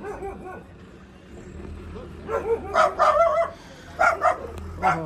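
Several dogs barking at a passer-by in quick runs of sharp barks, starting about two seconds in and again near four seconds.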